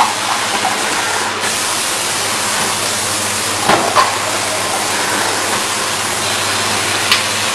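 Automatic water cup filling and sealing machine running with a steady hiss, with a few short knocks around the middle and near the end as it cycles.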